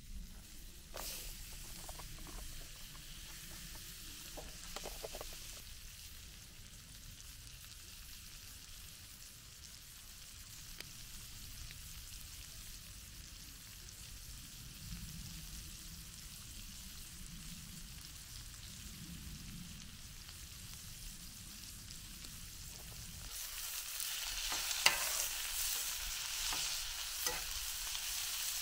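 Sausages sizzling in a stainless steel frying pan on a portable butane camp stove, with a few handling clicks near the start. From about 23 seconds in, the sizzle grows louder as sausages, bell peppers and onions are stirred, with a metal spatula clicking and scraping against the pan.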